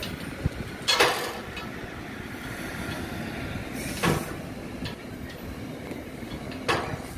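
NJ Transit commuter train rolling past with a steady rumble, its wheels clacking sharply three times, about three seconds apart.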